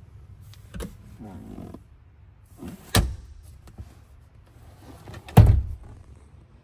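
Handling noise in a pickup's cab: three sharp knocks, the last the loudest, with a short creaking stretch about a second in, as a hand and the camera move against the leather seats and interior trim.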